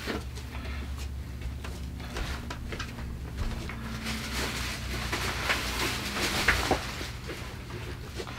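Plastic shopping bags crinkling and rustling as they are handled and packed into a small plastic trash can, with scattered light knocks; the rustling is busiest in the second half. A steady low hum runs underneath.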